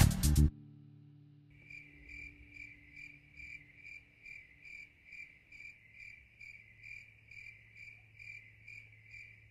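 A cricket chirping in an even rhythm, a little over two short chirps a second, starting about a second and a half in, with a faint low hum beneath. Music cuts off just before it.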